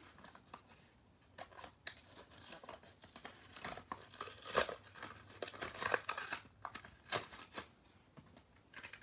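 Clear plastic blister and card backing of a Matchbox diecast toy pack being pulled apart by hand: irregular crinkling and crackling with sharp snaps of the plastic, the loudest about halfway through.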